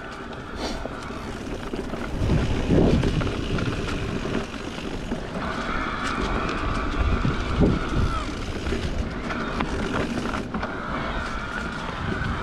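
Electric mountain bike riding along a dirt trail: steady tyre and trail rumble with wind buffeting the microphone, and heavier rumbles about two and a half and seven and a half seconds in. A steady higher whine joins in for a few seconds from about the middle.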